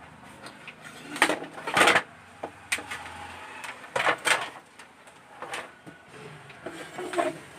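Irregular knocks and scraping clatters from handling the opened LED TV and its parts, the loudest a little before two seconds in.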